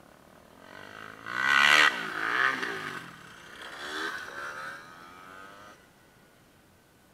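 Motocross bike engine revving: the pitch climbs sharply about a second in, drops, rises again around four seconds, then cuts off suddenly shortly before six seconds.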